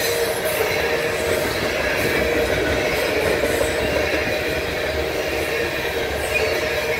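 Freight cars of a Canadian Pacific mixed manifest train, covered hoppers and tank cars, rolling steadily past: continuous wheel-on-rail noise with a steady tone through it.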